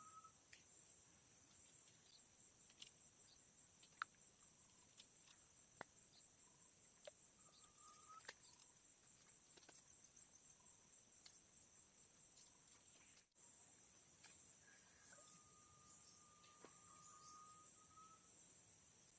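Faint, steady high-pitched drone of tropical forest insects. A long, level whistle-like note sounds briefly about eight seconds in and again for about three seconds near the end, with a few scattered sharp ticks.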